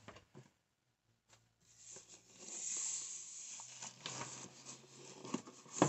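Rustling and crinkling of dollhouse-kit packaging being handled, with small clicks and knocks, starting about two seconds in.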